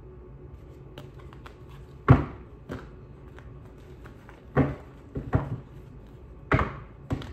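A tarot deck being shuffled by hand: about half a dozen sharp card slaps and thuds, the loudest about two seconds in.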